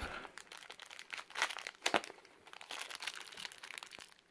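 Plastic parts bag crinkling and crackling as it is handled and pulled at to get it open, with irregular crackles and a sharper crackle about two seconds in. The plastic is being stubborn to open.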